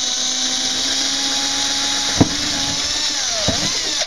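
Power drill running at speed with a 1/8-inch bit, boring a pilot hole through a door: a steady motor whine with the bit cutting. There is a sharp tick about two seconds in, the motor slows briefly and picks up again about three and a half seconds in, and it stops suddenly at the end.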